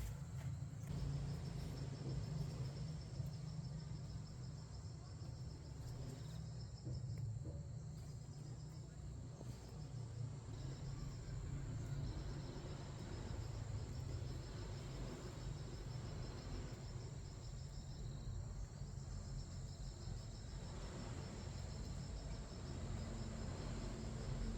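Insects chirping in a high, rapidly pulsing trill that pauses briefly a couple of times, over a steady low rumble.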